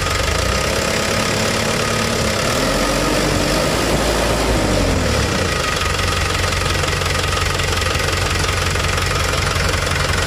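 Hino Dutro truck's diesel engine idling with a knocking note while its inline injection pump is adjusted. About two seconds in it revs up briefly and settles back to idle by the middle. The idle is still a little shaky.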